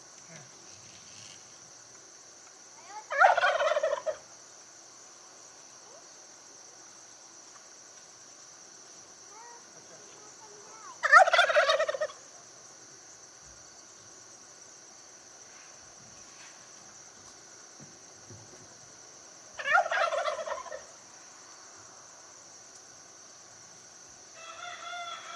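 Turkey gobbling: three loud gobbles of about a second each, roughly eight seconds apart, then a fainter one near the end.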